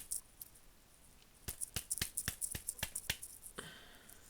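A quick run of light, sharp clicks, about five a second, with a few more at the start and near the end: small parts of a disassembled ratchet head being handled on the bench.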